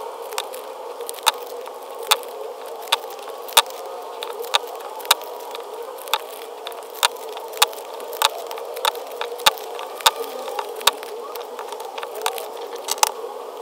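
Packaging being handled during an unboxing: sharp, irregular clicks and crackles, about one or two a second, over a steady hum.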